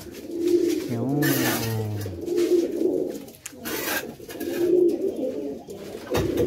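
Domestic pigeons cooing, a low coo phrase repeating about every two seconds.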